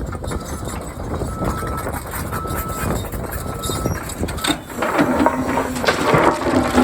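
Cat 320 excavator's diesel engine and hydraulics working while stripping topsoil, with strong wind noise on the microphone. A louder, steady drone comes in about five seconds in.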